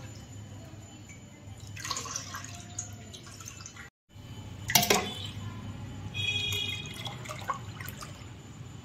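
Colostrum-and-milk mixture poured from a steel pot through a steel tea strainer into a steel pot, trickling and splashing. A sharp metallic clink of steel on steel sounds about halfway through.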